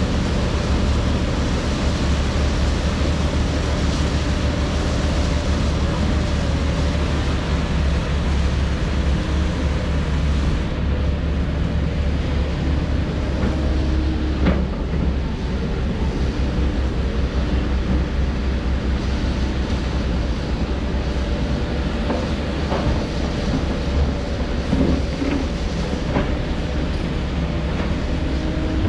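Heavy diesel construction machinery running steadily: a deep engine rumble with a steady whine over it, and a few sharp knocks around the middle and again later.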